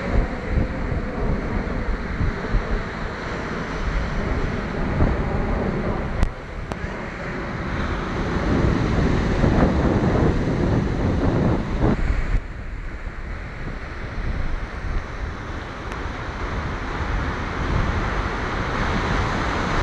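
Wind buffeting the microphone: a steady rushing rumble that swells for a few seconds near the middle, then eases off suddenly.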